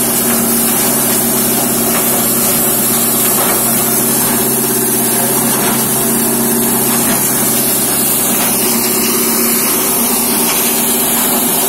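Plywood waste crushing machine, belt-driven by an electric motor, running steadily: a constant machine hum under a loud, even hiss.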